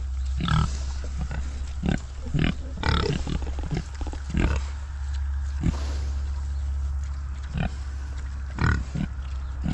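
Several pigs grunting and chewing as they root in a hay bale, in short separate sounds over a steady low rumble.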